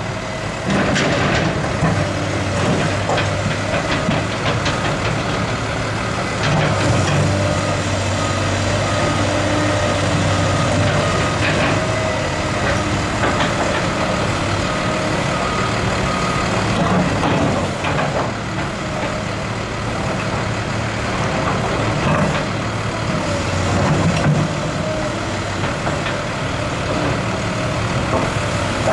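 Caterpillar 350L hydraulic excavator's diesel engine running steadily under load while it breaks out concrete pavement, with scattered clunks and scrapes of concrete slabs against the bucket. A reversing alarm beeps about once a second for several seconds in the middle.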